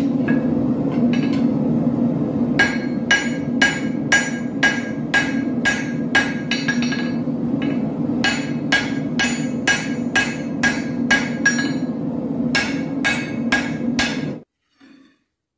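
Forging hammer striking steel on an anvil in three runs of blows, about two a second, each blow ringing with a clear metallic tone, over a steady low roar. Everything cuts off abruptly near the end.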